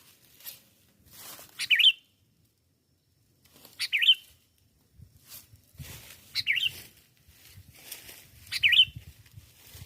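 Sooty-headed bulbul (kutilang) calling: the same short warbled phrase four times, roughly every two and a half seconds.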